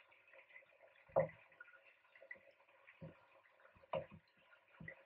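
Red slotted spatula and wooden spoon knocking against a non-stick pot while turning searing chicken thighs and celery: four separate knocks, the loudest about a second in, over a faint steady sizzle.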